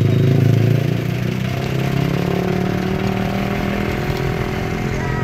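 An engine idling close by, steady, a little louder in the first second.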